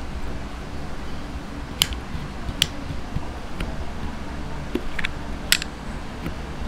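Metal spoon clinking and scraping against a small glass bowl while mashing shrimp bouillon cubes into hot water to dissolve them: a handful of sharp, separate clinks over a low, steady background hum.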